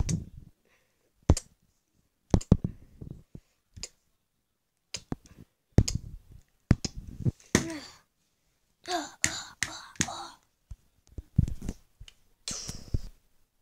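Plastic wrestling action figures being knocked together and against the floor in a play fight: a run of short, sharp knocks and clatters at uneven intervals, with a few brief voiced grunt-like sounds around the middle.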